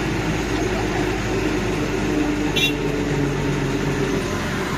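Sightseeing land train's engine running and its road noise, heard from on board the carriage, steady throughout, with one short high squeak about two and a half seconds in.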